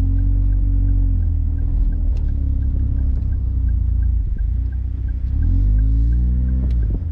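A small car's engine running with a steady low road rumble, its pitch rising and falling about two-thirds of the way through, under background music.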